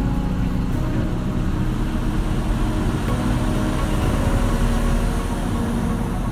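Steady diesel engine drone and road noise of a 4-tonne truck cruising on an expressway, heard from inside its cab.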